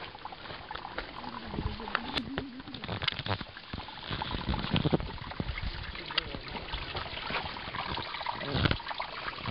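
Small brook babbling steadily, with scattered footsteps and brushing through plants.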